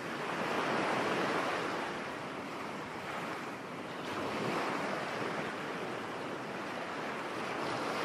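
Sea waves washing on the shore, a steady rush of surf that swells and falls back twice.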